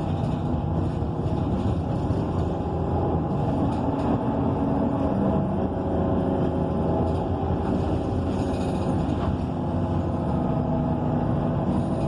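ENC EZ Rider II transit bus running between stops, heard from inside the cabin: a steady drone from its Cummins Westport ISL G natural-gas engine and Allison B300R automatic transmission, with road noise.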